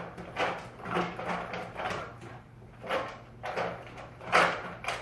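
Irregular knocks and rustling scrapes of objects being handled, roughly one or two a second, the loudest a little past four seconds in, over a faint steady hum.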